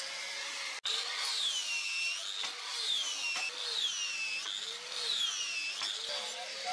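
Angle grinder with an abrasive disc grinding the steel of a leaf-spring cleaver blade. Its motor whine dips in pitch and recovers about once a second as the disc is pressed into the steel on each pass, after a brief drop-out about a second in.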